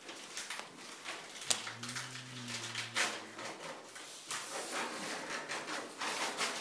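Handling noise from sterile supply packaging: repeated rustling, crinkling and small knocks as packages are checked and opened. A low hum runs for about a second and a half in the middle.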